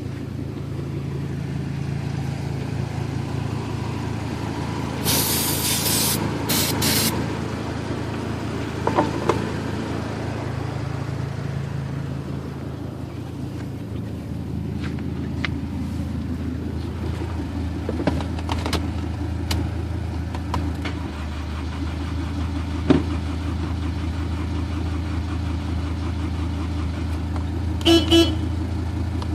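2001 Honda CR-V's four-cylinder engine cranking over on the starter without catching, a steady low drone, because the car cranks but won't start. Brief bursts of hiss come about five to seven seconds in, and a short horn-like beep comes near the end.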